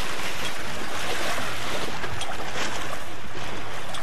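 Steady rush of wind and water past a sailboat under way, with wind buffeting the microphone.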